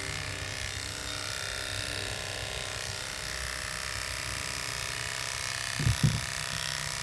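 Corded electric dog clipper running with a steady hum as it trims a wire-haired dachshund's facial furnishings. Two short low thumps come just before six seconds in.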